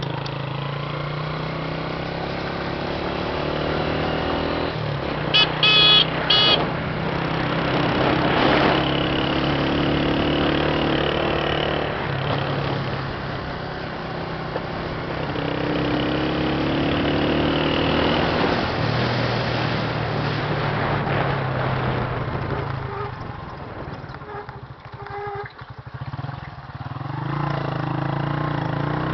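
A vehicle engine running while driving on a rough mountain road, its pitch shifting as it speeds up and slows. Three short beeps come about five to six seconds in. The engine eases off and drops lower near the end, then picks up again.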